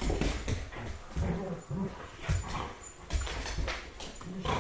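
Two year-old wolf-dog mixes (a timber wolf–malamute mix and a Rottweiler–timber wolf mix) play-fighting, with short low dog vocalizations, scuffling and knocks of paws and bodies on the wooden floor.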